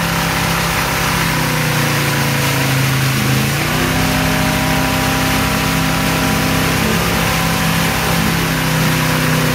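Motorboat engine running steadily under load while towing a wakesurfer, over a hiss of rushing water. About three and a half seconds in, its note sags slightly and then steps back up.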